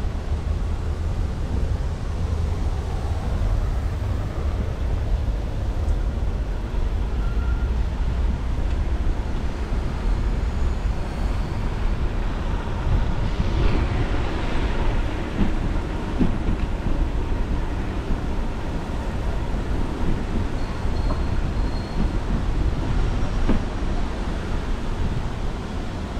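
Steady low rumble of wind buffeting an action camera's microphone while a bicycle rolls over stone paving, with a brief louder hiss about halfway through.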